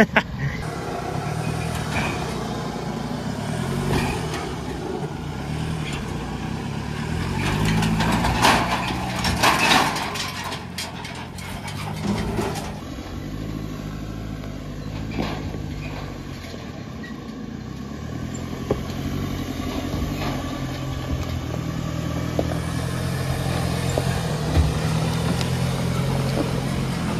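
Diesel Chevy Colorado's engine labouring at low speed as it tows a car-hauler trailer up a rocky trail, its revs rising and falling. A louder, rough patch of noise comes about a third of the way through.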